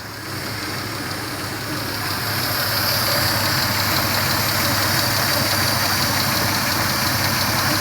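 1996 Toyota Camry engine idling with a steady hiss, getting louder about two to three seconds in as water is put on the intake: the engine is misfiring from a suspected vacuum leak, and the idle changes when the water reaches it.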